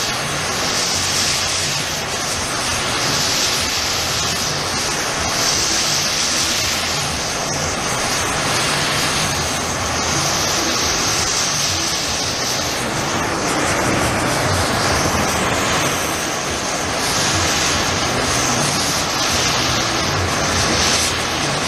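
Gas torch flame blowing with a steady rushing hiss that swells and eases every couple of seconds as the flame is swept along a high-carbon steel train rail, preheating it to a dull red before welding to avoid cracking.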